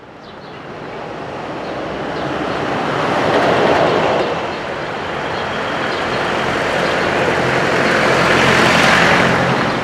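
Street traffic fading in: a steady rumble of engines and tyre noise, swelling as vehicles pass about three and a half seconds in and again near the end.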